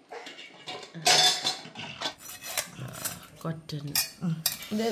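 Kitchen utensils and pots clinking, knocking and scraping in irregular strokes, the loudest scrape about a second in.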